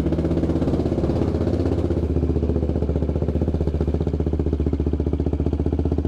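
KTM 390 Adventure's single-cylinder engine running steadily at low revs, with its intake snorkel removed.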